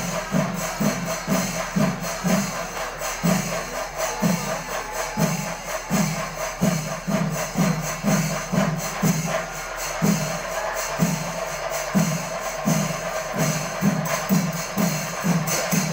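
Chenda melam, the Kerala temple percussion ensemble: chenda drums beating about twice a second under a constant clash of ilathalam hand cymbals.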